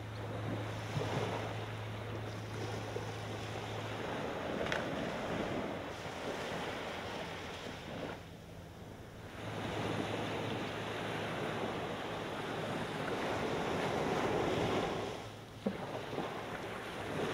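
Small ocean waves washing up on a sandy beach, the surf swelling and fading in slow surges, with some wind noise on the microphone.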